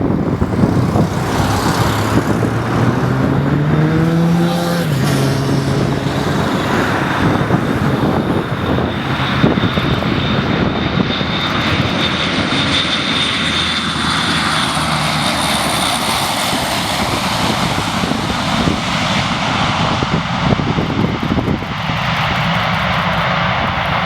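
Military aircraft engines passing close at an airfield. A rising engine tone drops sharply in pitch about five seconds in as the aircraft goes by. A high whine then fades over the next several seconds under continuous loud engine rush.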